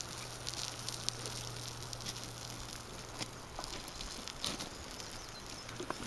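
Outdoor riverside ambience: a steady soft hiss with scattered light clicks and ticks throughout, over a low steady hum.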